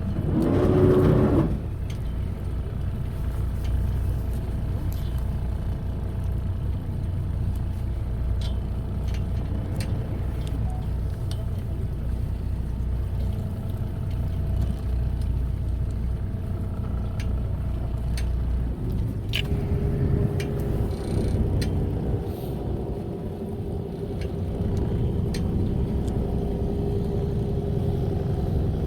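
Fishing boat's engine running steadily with a low hum, its note changing about two-thirds of the way through. A short loud sound comes near the start, and light clicks and knocks are scattered throughout.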